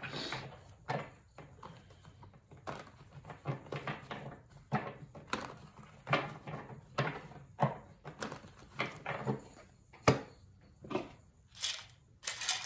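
Hands rummaging through objects on a table in search of dice: a run of irregular rustles, taps and small knocks, with one sharp knock about ten seconds in.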